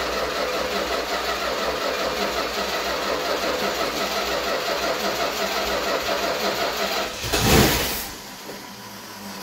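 Rebuilt Chrysler 440 big-block V8 cranking and firing on its first start after the rebuild, with a dry fuel system primed by pouring fuel into the carburettor bowls. About seven seconds in there is a brief, louder surge, after which the sound drops to a lower steady level.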